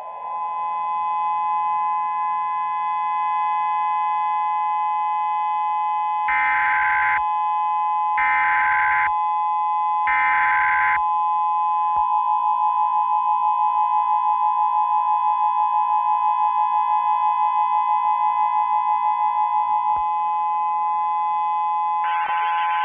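A civil defense siren winds up over the first second and then holds a steady wail. Over it, an Emergency Alert System header plays as three short bursts of data noise, followed by the two-tone EAS attention signal, pulsing steadily for about eight seconds. Near the end another burst of data noise starts.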